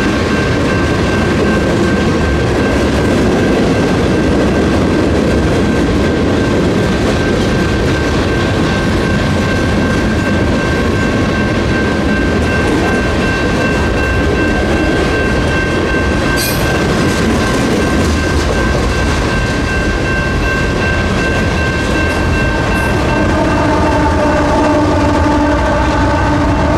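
Union Pacific freight train rolling through a grade crossing: a steady rumble and clatter of car wheels on the rails, with the crossing's electronic warning bell ringing throughout. Near the end the two rear distributed-power diesel locomotives pass, adding the hum of their running engines.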